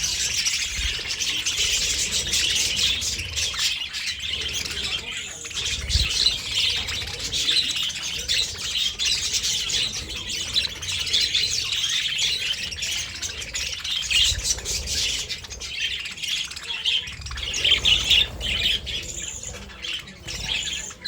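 A flock of budgerigars chattering continuously, many overlapping calls at once.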